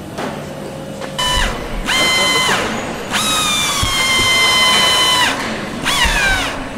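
Cordless drill drilling out rivets from the aluminium skin of an aircraft wing's trailing edge. It runs in four bursts of steady whine, the third the longest, and the last winds down with a falling pitch.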